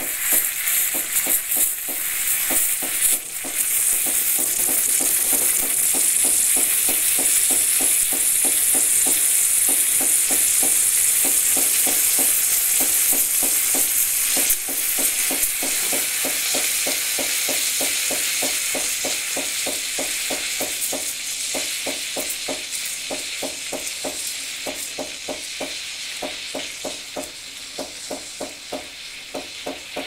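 Krups XP 3440 espresso machine's steam wand hissing into milk in a stainless steel pitcher, frothing it, with a rapid even pulsing underneath. The hiss is loudest in the first half and gradually fades toward the end.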